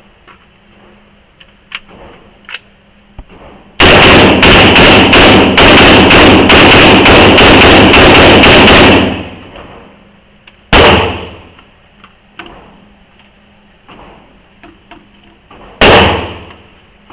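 Loud gunshots: a rapid string of about fifteen shots over some five seconds, about three a second, then two single shots several seconds apart.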